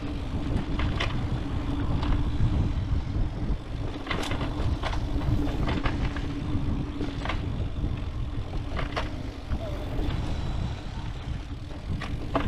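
Mountain bike rolling along a dirt trail: a steady low rumble with an even hum, broken by scattered sharp clicks and rattles as the bike goes over bumps.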